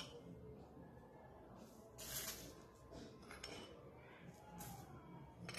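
Mostly quiet, with a few faint short hisses and a light clink as a spoon scoops salt from a bowl and sprinkles it over raw meat, potatoes and spices in an unheated pan.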